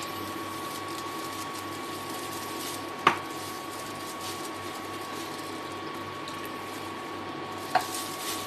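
Water bubbling and hissing in a steel pot of rice and vegetables just after being poured over it, with a steady high hum underneath. A plastic spatula taps sharply against the pot twice, about three seconds in and near the end.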